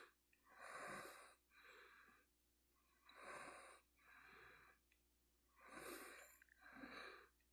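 Faint human breathing close to the microphone: three breaths, each a short pair of in and out, about two and a half seconds apart.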